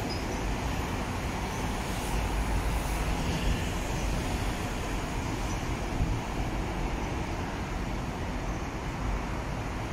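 Steady road traffic noise as buses and cars drive past, without any single loud event.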